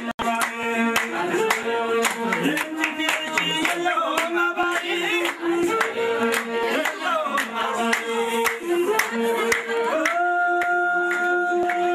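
Group singing with steady rhythmic handclapping. A long held note near the end.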